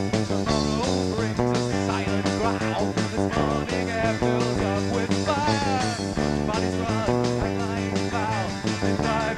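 Amateur rock band playing live: electric guitar chords over bass and drums, with a wavering higher melody line, in a poor-quality recording.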